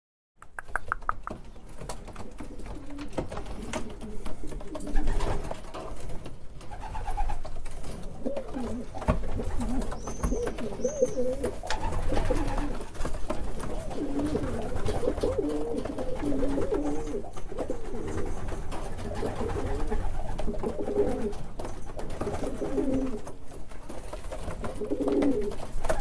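Racing pigeons cooing in their loft: many low, wavering coos from several birds overlapping throughout.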